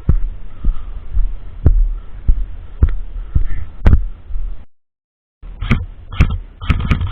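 Low rumble on a body-worn camera's microphone with scattered sharp cracks about once a second. After a brief dropout, a quick run of sharp cracks comes near the end.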